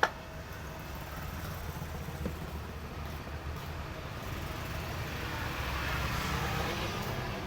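A motor vehicle passing by, its noise swelling to a peak near the end and then easing, over a steady low engine rumble. A sharp click sounds at the very start.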